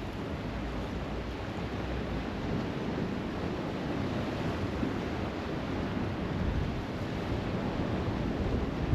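Steady rushing of wind buffeting the microphone over the wash of waves on the shore.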